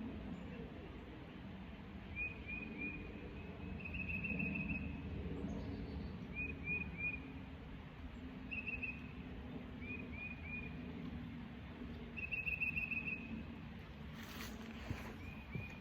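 A songbird singing over and over, alternating a quick, even trill with groups of three short slurred chirps, over a steady low outdoor background. About fourteen seconds in, a brief rushing noise cuts across it.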